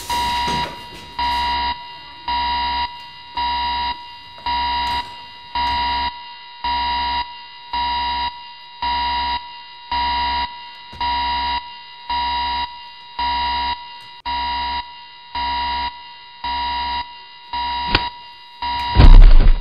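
Building alarm sounding in regular pulsed beeps, about one a second, over a steady tone. Near the end a loud thump cuts through.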